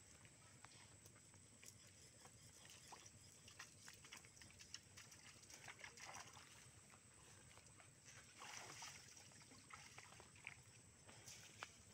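Faint, soft splashing of bare feet wading through ankle-deep water, a few steps at a time, with scattered small ticks.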